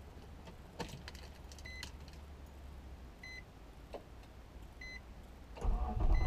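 2004 Nissan Maxima's in-cabin warning chime, four short beeps about a second and a half apart, with a few clicks. Near the end the starter cranks the engine for a cold start, heard from inside the cabin.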